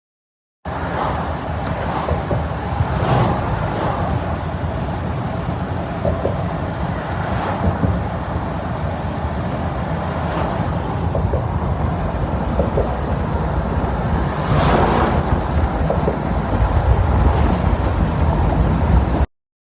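Steady low rumbling noise with wind buffeting the microphone, swelling briefly twice near the end.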